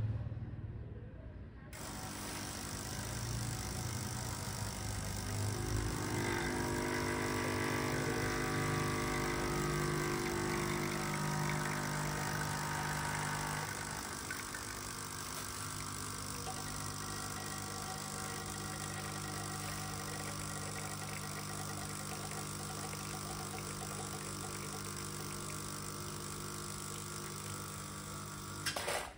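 Quickmill Carola espresso machine's vibratory pump buzzing steadily while an espresso shot is pulled. It starts about two seconds in, is louder for several seconds early in the shot, and stops with a click of the brew lever just before the end.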